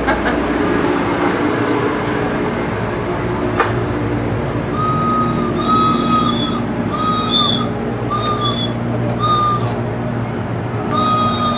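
Steady hum and indistinct voices inside a parked passenger rail car. From about five seconds in, six short, high, even-pitched beeps sound roughly once a second.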